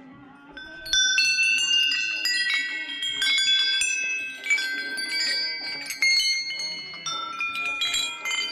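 Brass temple bells hanging in rows, struck by hand one after another, starting about a second in. Many bells ring at once at different pitches, each strike ringing on and overlapping the next.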